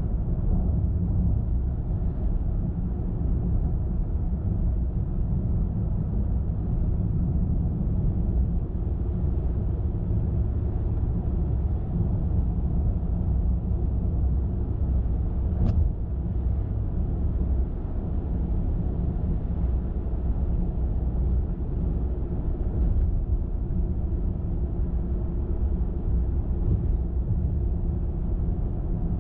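Car driving steadily on the road: a constant low rumble of tyres and engine, with one short sharp click about halfway through.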